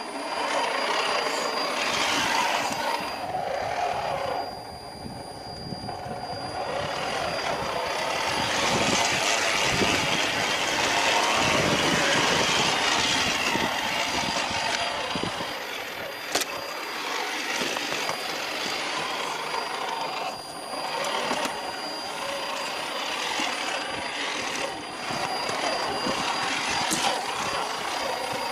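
RC scale off-road car's motor and drivetrain whining as it drives over muddy ground, swelling and easing with the throttle.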